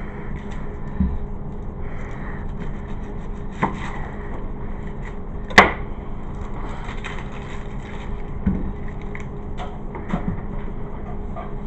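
Kitchen food-prep clatter: a handful of irregular knocks and clicks, one sharp and loud about halfway through, over a steady low hum.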